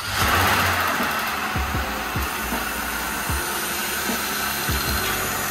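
A 2020 Jeep Wrangler's engine running at idle just after it has been started, on its first start after an oil pan replacement. It has a steady rushing hiss over a low hum, a little louder in the first half-second, then even.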